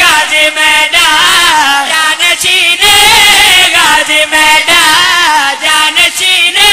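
Men chanting a Shia devotional qasida into microphones, their voices rising and falling in wavering, ornamented runs with only brief breaks for breath. It is loud and amplified.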